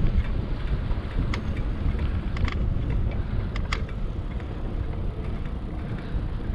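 Wind buffeting the microphone of a camera on a moving bicycle, over the low rumble of tyres on a concrete path, with a few sharp clicks and rattles from the bike.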